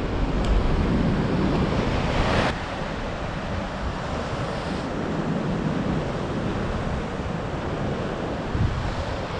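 Ocean swell surging and washing over the rock ledge below, with wind on the microphone. The wash is louder for the first two seconds or so, then eases off.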